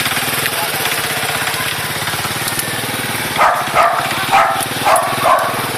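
A dog barks about five times in quick succession past the middle, over a small engine running steadily.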